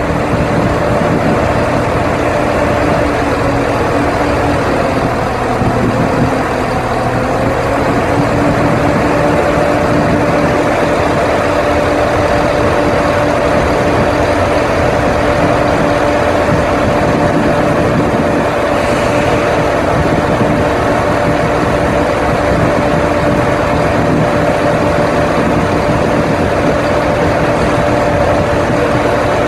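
Underfloor diesel engine of a Turbostar diesel multiple unit idling with a steady drone, its pitch wavering briefly about five seconds in.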